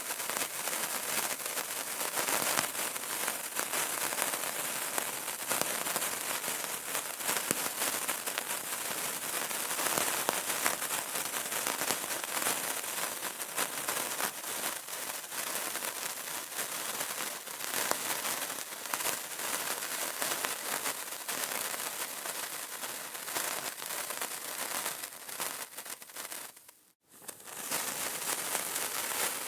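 Burning candle crackling: a dense run of small, quick crackles and pops over a steady hiss. It fades out briefly near the end, then comes back at the same level.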